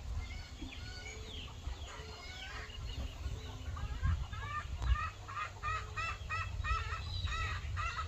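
Chickens clucking; about halfway through the calls turn into a quick, evenly spaced run of about three a second.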